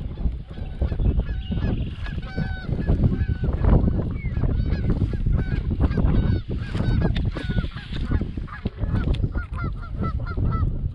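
A flock of geese honking over and over, many short calls overlapping, with wind rumbling on the microphone.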